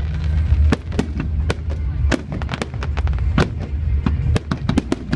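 Fireworks going off: sharp, irregular bangs and cracks, about three a second, over a continuous low rumble.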